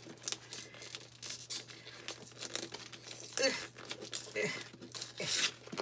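White wrapping paper rustling and tearing in a string of short rips and crinkles as a sticker seal is picked at and peeled open.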